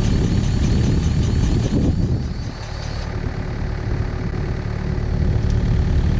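Takeuchi excavator's diesel engine running steadily, dipping briefly in level partway through. A faint, rapidly repeating high chirp runs alongside it and stops about three seconds in.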